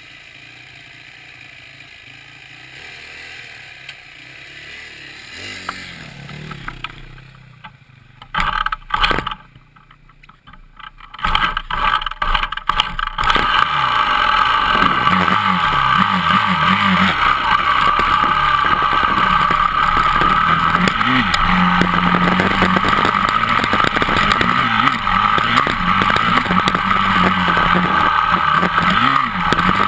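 Dirt bike engine, quiet at first, with a couple of loud knocks about eight seconds in. From about eleven seconds in the engine runs loud and steady as the bike rides along the trail.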